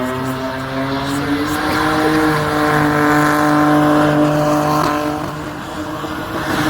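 Car engine held at high revs during a burnout in a burnout pit, its pitch stepping up about a second and a half in and easing down twice later, over the hiss of spinning tires.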